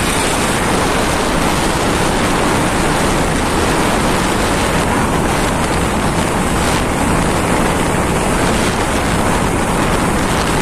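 Steady, loud rushing noise of wind buffeting a phone's microphone, with no breaks or changes.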